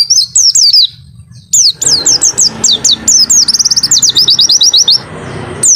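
White-eye (pleci) singing: fast, high, down-slurred whistled notes in quick bursts. After a short pause about a second in comes a longer run that speeds up into a rapid trill, and one more burst follows near the end.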